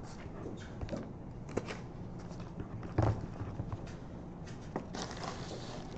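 Scattered small clicks, knocks and rustling over a steady low room hum, with a louder thump about three seconds in and a burst of rustling near the end.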